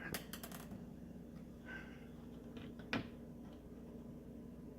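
A few faint clicks and taps of small parts being handled and fitted into the microwave panel, a cluster of them at the start and a single sharper click about three seconds in, over a low steady hum.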